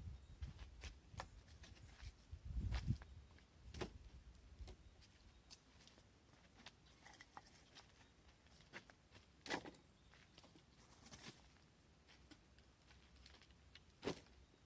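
Faint, scattered knocks and snaps of dry sticks being handled and laid on a bonfire stack, with a low rumble about three seconds in, over near silence.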